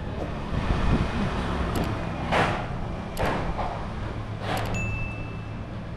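Town street sounds: a vehicle engine running with a steady low hum, three short hissing bursts in the middle, and a brief high steady tone near the end.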